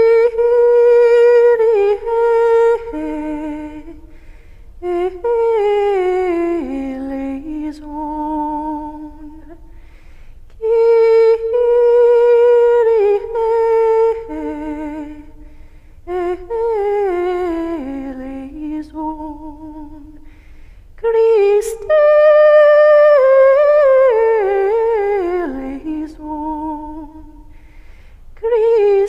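A single unaccompanied voice singing a slow, chant-like melody in five phrases with short pauses between them, each phrase sinking in pitch toward its end.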